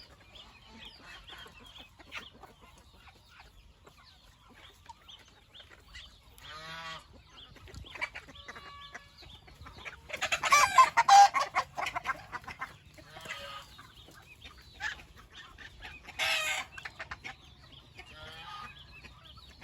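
Chickens clucking and calling, with several louder calls; the loudest lasts about two seconds, starting about ten seconds in, and another comes around sixteen seconds.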